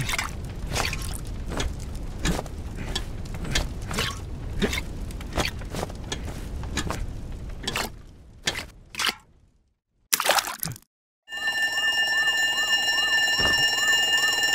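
Cartoon sound effects: a run of quick, even knocks about twice a second with a steady rumble under them, a short burst near the middle, then a fire station alarm bell ringing steadily for the last three seconds.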